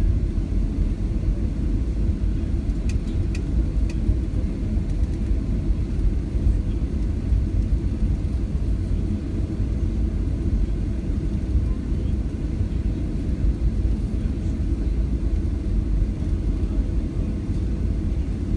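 Steady low rumble inside the cabin of a Boeing 737-700 as it taxis, its engines at idle. A few faint clicks come about three seconds in.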